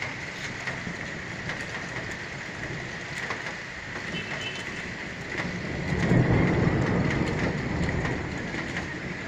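Steady rain falling at a moderate rate, with a roll of thunder that swells about six seconds in and fades away slowly.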